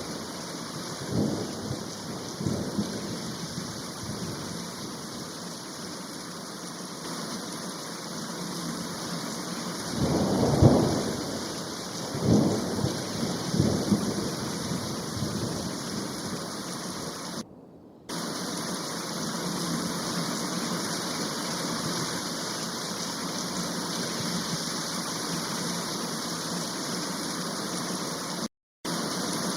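Rushing water: a steady hiss with several deep, rumbling surges in the first half. It drops out briefly twice.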